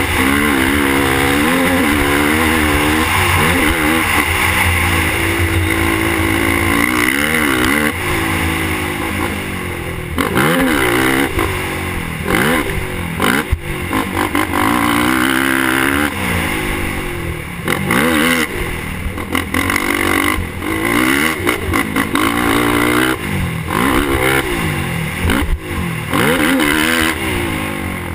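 Suzuki LTR450 quad's single-cylinder four-stroke engine being ridden hard: its pitch climbs and drops again every second or two as the throttle is worked, with brief lifts off the throttle.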